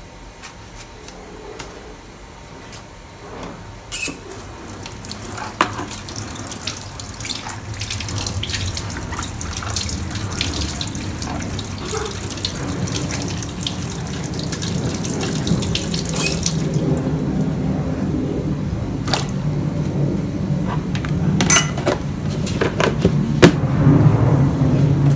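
Kitchen tap running into a stainless steel sink as eggplants are rinsed under it, with several sharp knocks of the vegetables and utensils against the sink. A low steady hum grows underneath in the second half.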